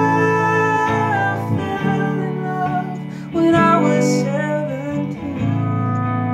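Live music on guitars: a hollow-body electric guitar strummed in sustained chords, with a steel guitar playing notes that slide up and down in pitch.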